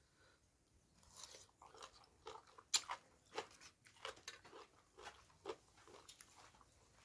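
Close-up chewing of crunchy green papaya salad, with irregular crunches and wet mouth smacks starting about a second in.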